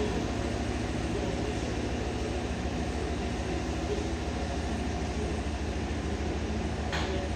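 Chevrolet Tahoe's V8 engine running steadily, freshly refilled with oil, with one short click near the end.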